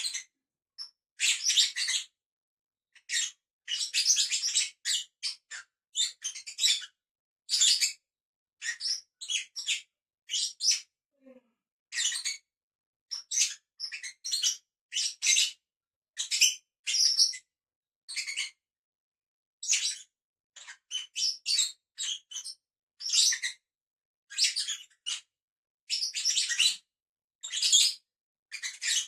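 Pet lovebirds chirping in short, high-pitched calls, one after another every second or so with brief gaps between.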